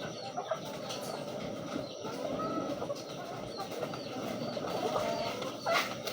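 Many pigeons cooing together in a loft, a continuous overlapping murmur with small higher chirps above it, and a sharp louder sound near the end.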